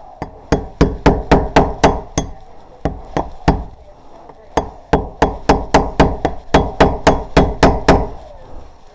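Rapid series of sharp knocks, about three a second, in two runs with a few single hits and a short pause between them.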